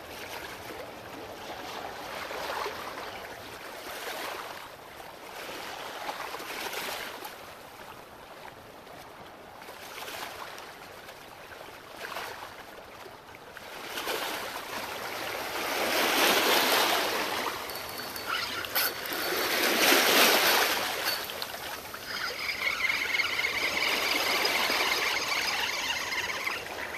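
Small waves washing and sloshing against shoreline rocks, swelling and fading every couple of seconds, with two larger surges in the second half. Near the end a steady high whine joins in.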